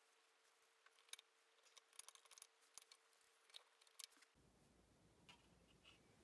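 Near silence, with a scatter of faint light clicks and taps from about one to four seconds in, as 3D-printed plastic rocket-model sections are handled and fitted together.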